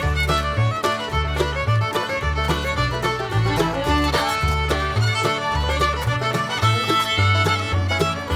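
Background music: an upbeat bluegrass-style tune with fiddle over a walking bass.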